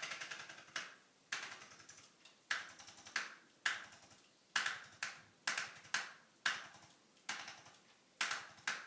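Erchonia Brimhall chiropractic adjusting instrument firing about fifteen short bursts of rapid clicking impulses, each fading quickly, spaced roughly half a second to a second apart, as it adjusts misaligned vertebrae in the neck back into alignment.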